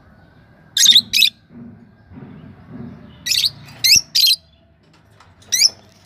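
Lovebirds giving short, loud, high-pitched chirps: a pair about a second in, three in quick succession around the middle, and one more near the end.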